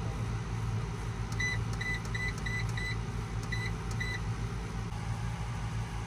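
Seven short, high electronic beeps: five in quick succession starting about a second and a half in, then two more a little later. A steady low hum runs underneath.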